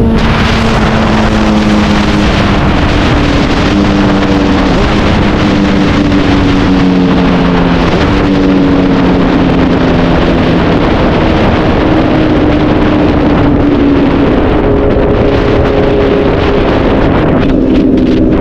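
Honda CBR 1000RR's inline-four engine running under way through a straight-through exhaust, its note holding and then stepping to a new pitch several times. Wind rushes over the microphone throughout.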